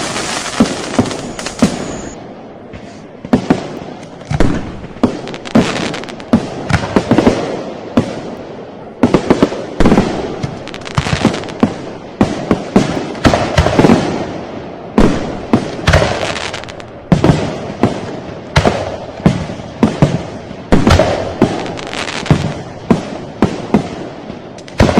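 Firecrackers going off: a dense, rapid crackle for about the first two seconds, then a long run of separate sharp bangs at an irregular pace, roughly one or two a second, some coming in quick clusters.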